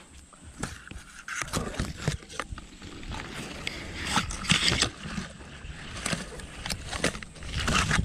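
Irregular rustling and crackling of leaves and twigs as brush is pushed through or handled, growing louder around the middle and again near the end.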